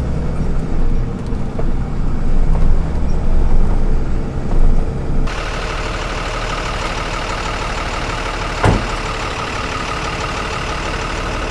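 Truck engine and road noise heard from inside the cab while driving, rising and falling. About five seconds in, it cuts abruptly to a steadier, hissier outdoor background with a single knock near the end.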